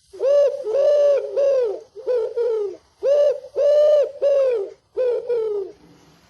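An animal calling: a series of pitched hooting notes, each rising and falling in pitch, in groups of three, then two, then three, then two.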